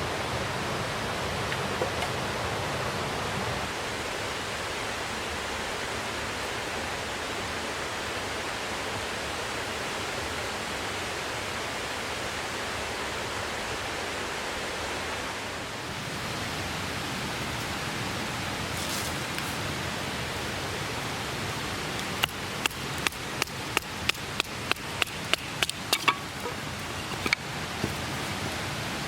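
Steady rushing of a clear mountain stream. Near the end, a quick run of about a dozen sharp knocks, two or three a second, like wood being struck.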